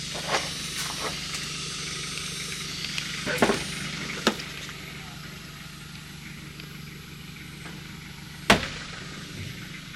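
Door of a Mitsubishi Montero being opened: a latch click about four seconds in and a sharp knock about eight and a half seconds in, over a steady low hum.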